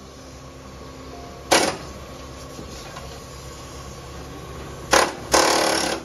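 Pneumatic air chisel hammering into the rusted sheet-metal fender apron in three bursts: a short one about one and a half seconds in, another near five seconds, then a longer one near the end.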